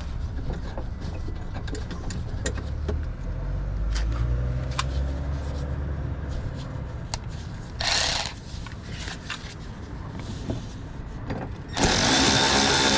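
Scattered clicks and knocks of plastic wheel-well liner parts being handled and fitted on a car. Near the end a loud, steady mechanical noise starts suddenly and keeps running.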